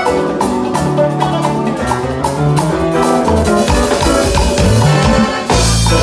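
Live gospel band playing an upbeat instrumental groove: keyboards play chords over deep bass notes, with drum kit and congas keeping a steady beat.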